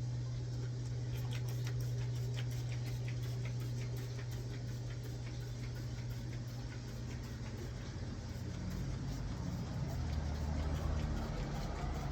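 A steady low motor hum that drops in pitch about eight seconds in, with a run of rapid light clicks in the first half.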